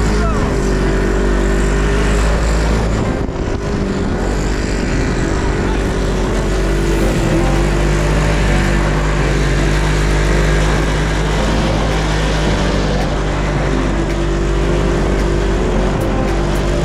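Off-road vehicle engine running steadily while being driven over sand dunes, its pitch shifting slightly as the throttle changes, over a heavy low rumble.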